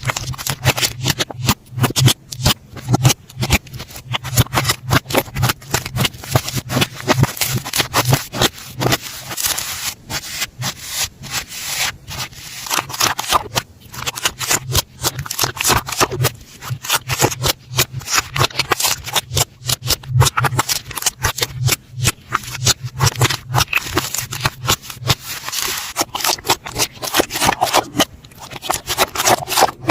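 Slime being squished and worked, giving a rapid, irregular run of crackling and popping clicks.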